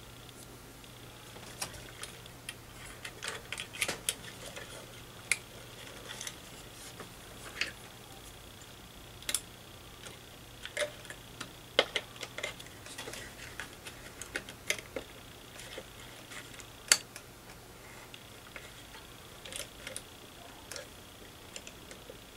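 Irregular small clicks and ticks of hands fitting terminals and wire leads inside a tube tester's chassis, small metal parts knocking as the leads are clamped on. A low steady hum runs underneath.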